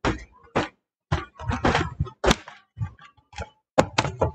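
Camera handling noise: a string of irregular knocks and thunks with brief rustling, as the handheld camera is carried and bumped about.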